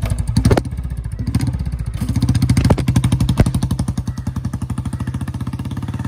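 Old Royal Enfield Bullet's single-cylinder, two-valve pushrod engine running with an even, rapid beat of exhaust pulses as the motorcycle pulls away. It grows fainter over the last couple of seconds as the bike moves off.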